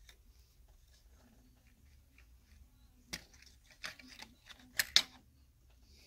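A few sharp clicks and knocks of small plastic and metal parts being worked loose and handled inside an opened Xbox One X, as its front board is freed from its ribbon connector and lifted out. They start about three seconds in and come in a quick cluster, the loudest near the end.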